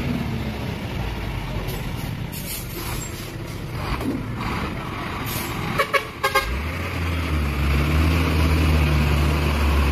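Heavy diesel truck engines running under load as one truck tows another through mud on a cable, with two short horn toots about six seconds in. After the toots a deep, steady engine drone swells and holds to the end.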